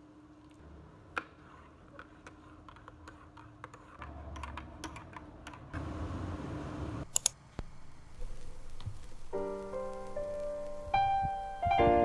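A spoon stirring instant coffee in a ceramic mug: faint clicks, then a few seconds of stirring noise, followed by two sharp clinks. Piano music comes in about nine seconds in.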